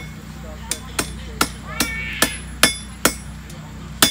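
Blacksmith's hand hammer striking iron on an anvil: about eight blows at two to three a second, each with a short metallic ring, with a brief pause before the last blow.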